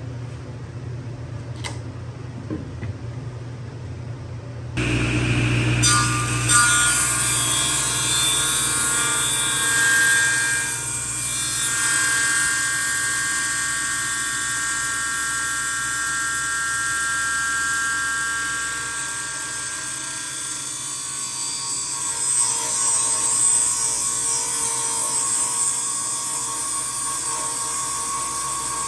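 Table saw running and cutting wood: a low hum, then about five seconds in a sudden loud high whine with cutting noise that holds steady.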